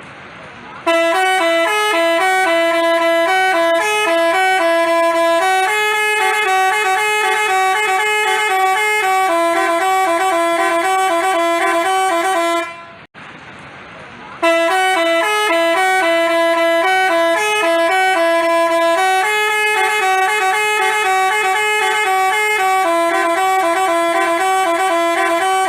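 Telolet basuri bus horn playing a tune of quick stepped notes, two tones moving together, for about twelve seconds; it stops briefly, then plays the same tune again.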